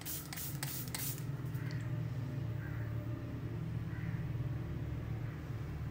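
Finger-pump makeup fixing spray misting the face in a few quick sprays, each a short hiss, ending about a second in. A steady low hum follows.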